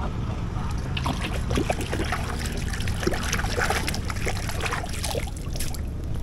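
Small irregular splashes and trickling water at the surface as a fishing handline is worked by hand, over a steady low rumble.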